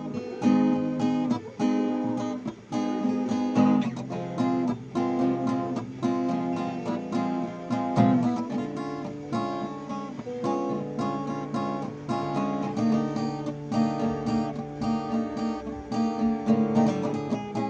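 New acoustic guitar being played, a run of chords strummed and picked with notes ringing on.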